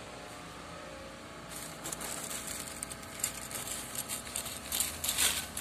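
A plastic bag of coarse sea salt rustling and crinkling as a hand opens it and reaches in. It starts about a second and a half in and is loudest near the end; before that there is only a faint steady hum.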